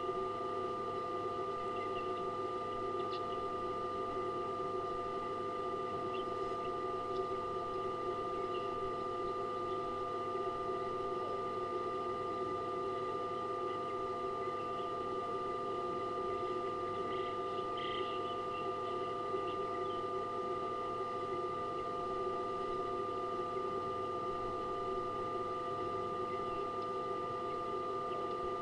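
Steady electrical hum and whine made of several fixed tones, with a few faint short chirps now and then, clearest about 18 seconds in.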